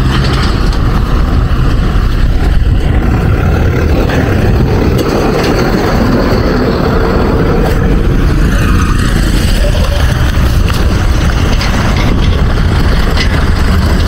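Wind buffeting the camera microphone outdoors: a steady, loud low rumble that barely changes in level.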